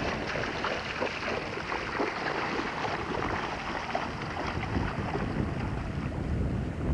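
Wind buffeting the microphone: a steady, rumbling rush with no let-up.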